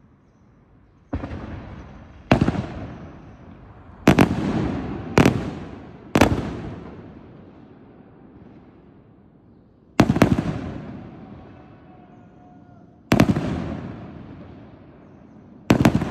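Aerial firework shells bursting overhead: about eight loud bangs at uneven intervals, some doubled, each rolling off in a long echo.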